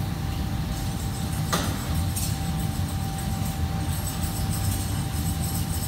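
Steady low machinery hum of a commercial kitchen, likely its fans and refrigeration, with a faint steady tone over it. A couple of brief clinks come from work at the prep counter, one about a second and a half in.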